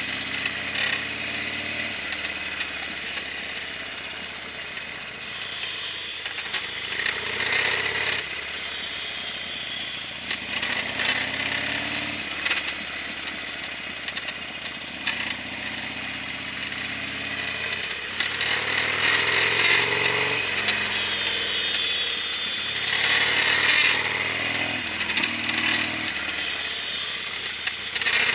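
Harley-Davidson Sportster XL1200R's air-cooled V-twin running under way, its engine note repeatedly climbing and dropping back as the bike accelerates and changes gear.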